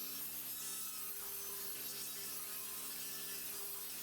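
Shop vacuum running steadily, a low motor hum with an airy hiss, its hose or port described as blocked.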